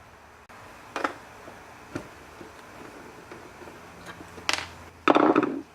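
Scattered clicks and knocks of a screwdriver working on the metal computer case as the power supply's mounting screws are taken out, with a louder clatter near the end.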